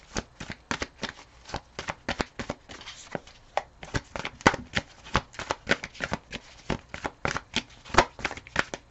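A tarot deck being shuffled by hand: a quick, uneven run of light card slaps and riffles, about four a second, as the next card is sought.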